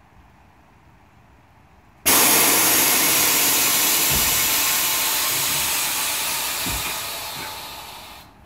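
Compressed air rushing out of a truck's air-ride suspension bags as the air is dumped: a loud hiss that starts abruptly about two seconds in and slowly fades before cutting off near the end. Two dull knocks sound under it.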